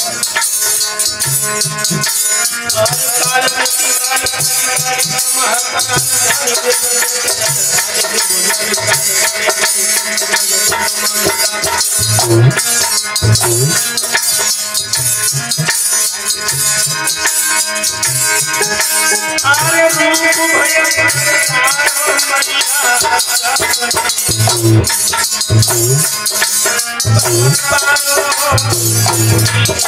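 Devotional music: a harmonium plays sustained melody chords over a steady jangling rattle-type hand percussion and recurring low drum strokes. A man's singing voice is at the microphone near the end.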